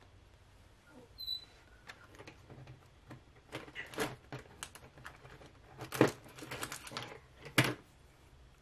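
Light clicks and taps of wooden sticks and small tools being handled on a work table, scattered and irregular, loudest about six and seven and a half seconds in. A short high squeak about a second in.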